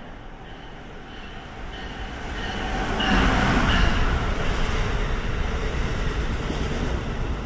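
Amtrak Crescent passenger train approaching and running past at speed: the rumble of wheels on rail builds, peaks sharply about three seconds in as it goes by, then carries on as the cars pass.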